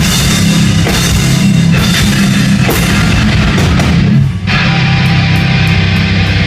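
Heavy rock band playing loud, with drum kit and distorted electric guitars, and a brief break about four seconds in before the music comes back in.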